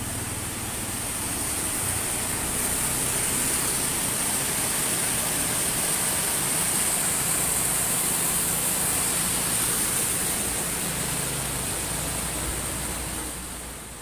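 Rushing floodwater: a steady broad hiss that swells about two seconds in and eases off near the end.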